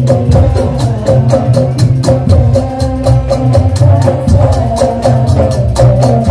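Madurese daul percussion band playing: heavy drums and fast, steady percussion strokes under a pitched melody line, loud and without a break.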